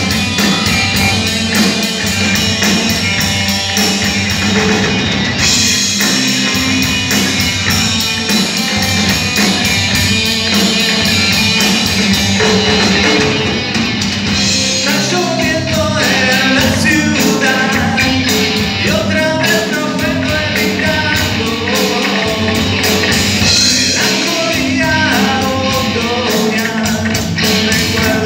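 A rock band playing live: electric guitars and a drum kit, loud and steady, with a melodic line coming in over the top about halfway through.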